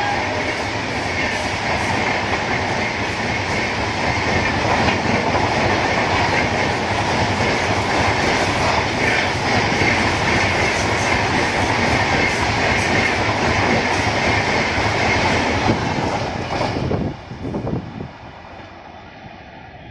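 Indian Railways express train's passenger coaches running through a station at speed: a loud, dense, steady rushing rumble and rattle of wheels on track. About 17 seconds in it drops suddenly to a much fainter distant rumble as the train is far off.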